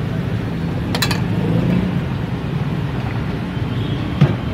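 Steady low rumble of street traffic, with a sharp click about a second in and a short knock near the end.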